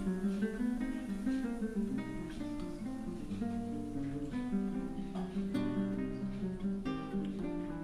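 Background instrumental music of plucked notes at an even pace.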